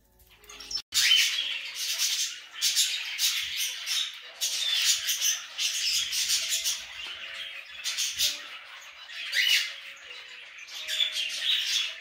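Cockatiels chattering and squawking, a dense continuous mix of chirps and harsh calls, starting about a second in.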